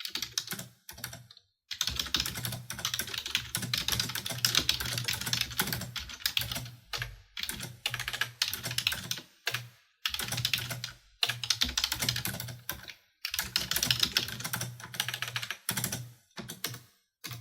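Computer keyboard being typed on in fast bursts of key clicks, with short pauses between runs.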